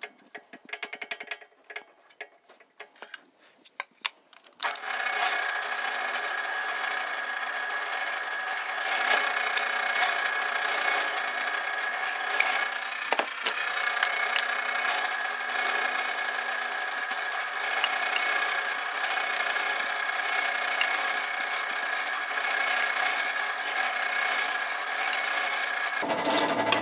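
Light clicks and rattles of the countersink bit being fitted in the drill chuck, then the pillar drill runs steadily for about twenty seconds as it countersinks screw holes in wooden boards. The bit scrapes and rasps as it cuts into the wood. The drill stops near the end.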